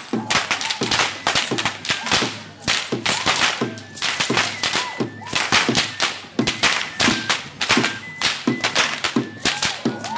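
Tlacololero dancers' braided whips (chirriones) cracking loudly, several cracks a second in an irregular barrage as a group cracks together.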